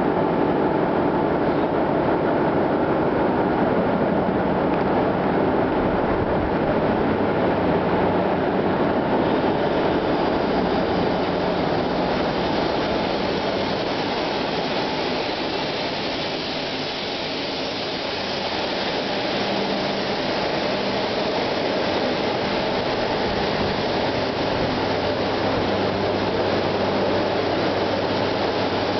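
Loud, steady engine-room din of a container ship's two-stroke main diesel engine, rated 51,420 kW at 102 rpm, running. The noise eases slightly a little past halfway and then comes back up.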